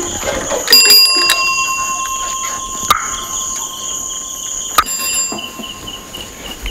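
Crickets chirring steadily in a high, continuous tone. A metallic bell rings about a second in, and rings again briefly near five seconds.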